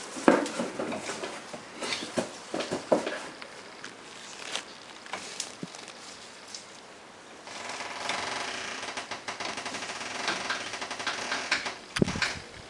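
Hand tools working a mangled steel cotter pin out of a front-wheel spindle nut: scattered metal clicks and knocks, then from about seven and a half seconds in a quick, steady rattling scrape as the pin is worked free.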